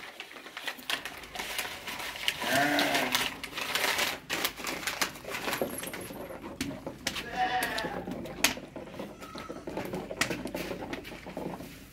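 A goat bleats twice, once about two and a half seconds in and again about seven and a half seconds in. Around the bleats, a flat wooden stick stirs a thick liquid mixture in a metal cooking pot, giving scattered knocks and clicks.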